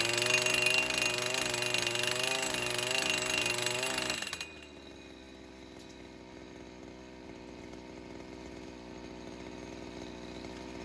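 Gas-powered post driver running at full throttle, its small engine and hammer pounding a steel pipe fence post into rocky ground, then dropping abruptly to idle about four seconds in.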